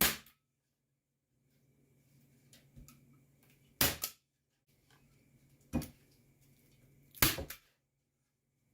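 Staple gun driving staples through screen mesh into a wooden door frame: a string of sharp snaps, one right at the start, a quick pair about four seconds in, one near six seconds and another quick pair past seven, with faint handling rustle of the mesh between shots.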